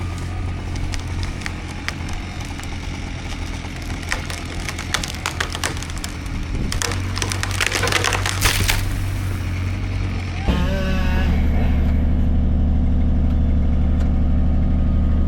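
A steady diesel engine runs while wood cracks and splinters in a dense burst in the middle. About ten and a half seconds in, the engine steps up louder and holds a steady higher note.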